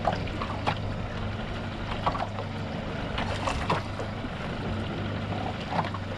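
A boat's motor running with a steady low hum, with occasional short knocks on board.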